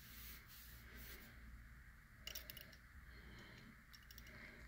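Near silence with a few faint clicks and light handling noise, about two seconds in and again shortly after, as a small 1/64-scale die-cast model car is picked up and turned in the fingers.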